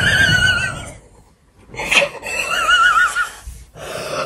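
A person's high-pitched, wavering laugh in two long bursts, the second starting about two seconds in after a brief pause.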